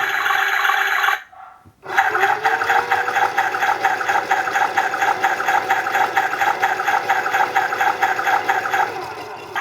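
Toy washing machine's wash-cycle sound effect: a rapidly pulsing whir over a steady hum. It cuts out about a second in, then starts again with the hum rising into pitch, and fades near the end.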